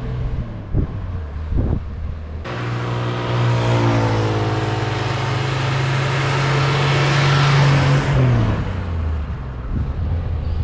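Car engine running as the car drives along an asphalt road, with tyre and wind noise building as it approaches. Its engine is fed by gas from an on-board garbage gasifier. The engine pitch drops as the car passes close, about eight seconds in, and the sound then falls away.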